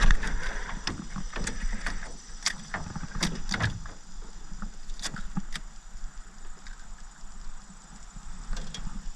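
Irregular clicks, knocks and rattles of a fish and gear being handled in a jon boat, busiest in the first few seconds and thinning out after.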